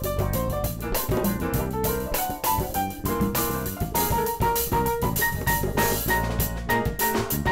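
Funk band instrumental with electric bass, drum kit, congas, hollow-body electric guitar and piano all playing a tight groove. From about halfway a high note is repeated in short stabs.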